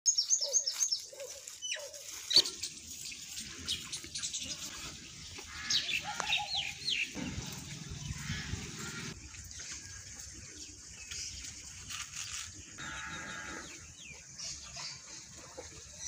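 Small birds chirping in short, high, falling calls, a quick run of them at the start and more near the middle, over light outdoor background noise. A single sharp knock about two seconds in.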